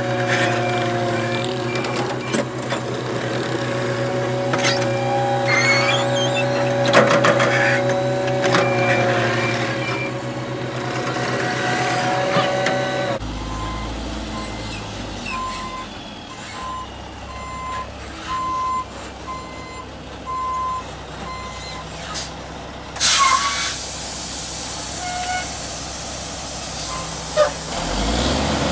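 CAT 259D compact track loader's diesel engine running steadily, with knocks from the bucket working dirt. Then a dump truck backs up, its reversing alarm beeping about once a second, and about two-thirds of the way in its air brakes give a loud hiss.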